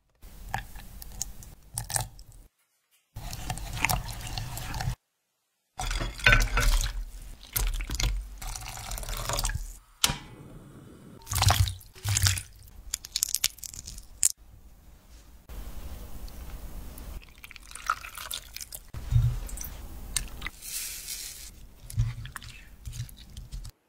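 Kitchen prep sounds cut together: water dripping and splashing as a wire strainer lifts cooked shrimp out of ice water, then a spoon stirring and clinking through sauce and shrimp in a ceramic pot. The sound is choppy, with short clicks and splashes and two brief dead silences early on.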